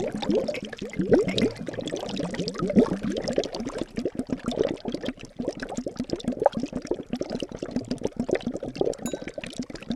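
Liquid bubbling and gurgling continuously, a dense stream of small bubbles each giving a quick rising plink.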